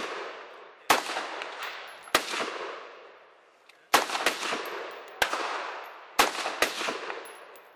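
AR-15-style rifle fired as single shots: six shots at irregular intervals, the last two close together. Each shot has a long echoing tail.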